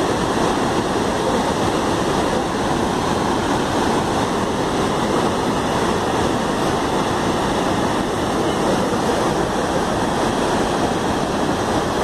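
Steady rushing of heavy water from a waterfall and the swollen river below it, an even, unbroken noise.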